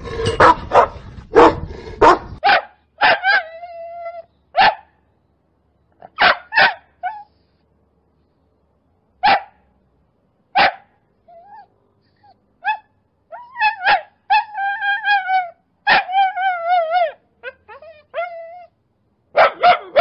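Dogs barking: a quick run of rough barks at the start, then single sharp barks spaced a second or more apart. In the second half come high-pitched yips and whining barks with a wavering pitch.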